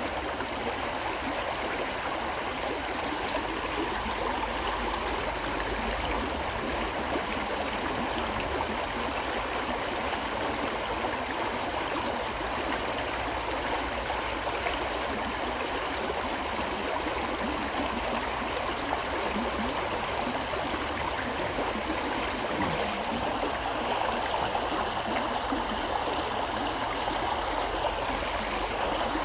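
A river flowing steadily, a continuous rush of water with gentle gurgling.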